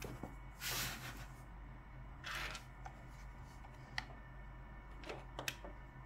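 Hands handling a Logitech MX Master mouse: two short rasping scrapes, then a few sharp clicks.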